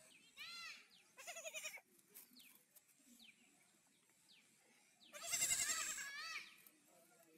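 Goat kids bleating: two short, high cries in the first couple of seconds, then one long, louder bleat about five seconds in.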